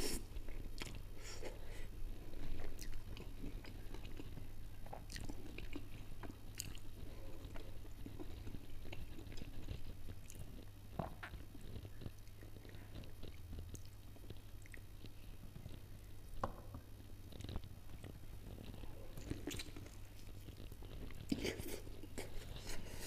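Close-up eating sounds: a person biting into and chewing a saucy grilled chicken drumstick, with soft wet mouth noises and scattered smacks and clicks. A low steady hum runs underneath.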